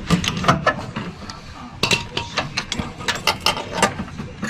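Sharp metallic clicks and clanks in two bursts, the second longer: a pry tool working against metal on a Toro Turfmaster mower to pry the traction cable's retaining clip out.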